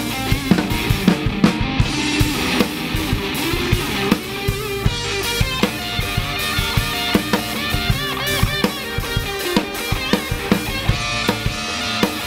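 Live ska band playing: drum kit with steady bass drum and snare hits under electric guitar, bass and organ, with a trumpet playing out front.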